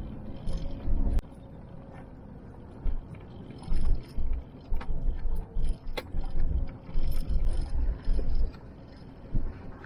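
Four-wheel-drive ute moving over a rough dirt track: an irregular low rumble and thumps as it bounces, with a few sharp knocks.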